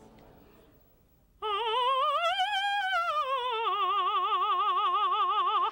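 Operatic mezzo-soprano singing one long vowel, the short O 'ah' of 'opera', with heavy vibrato. It starts about a second and a half in, swoops up in pitch and back down, then holds a lower note until it cuts off.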